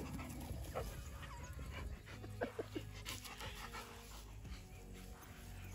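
A Labrador panting close by, quick rough breaths.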